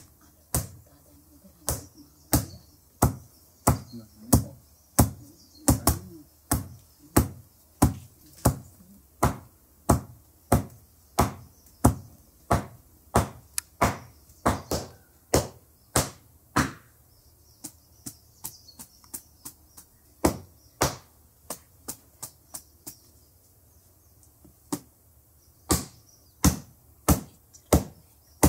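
Coconut husk being beaten on a wooden chopping block to loosen the coir fibres: sharp, evenly spaced blows, about three every two seconds. The blows turn lighter past the middle, stop for a couple of seconds, then start again near the end.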